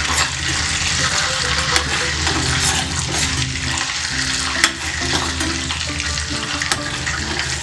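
Homemade ghee sizzling and crackling in the pan at the finished stage of boiling down the butter, with sharp pops now and then, the loudest about halfway through.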